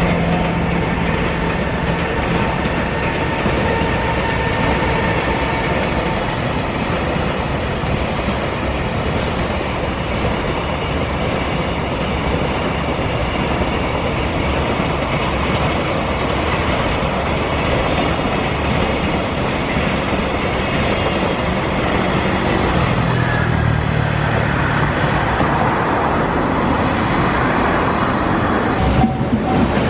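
Freight train hauled by a JR Freight EF210 electric locomotive passing, its wagons' wheels running steadily on the rails.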